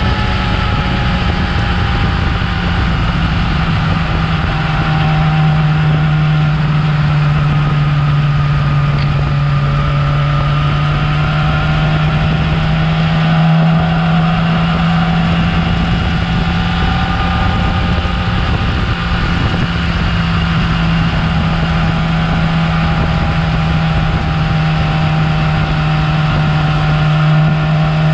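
Yamaha R6's inline-four engine running steadily through its stock exhaust, with small slow shifts in pitch.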